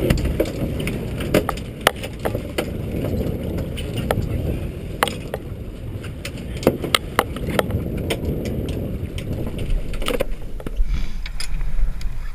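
Scattered sharp knocks and clatter of fish and tackle being handled on the deck of a small fibreglass boat, over a steady low rumble of wind and sea. The knocks stop about ten seconds in, leaving the rumble.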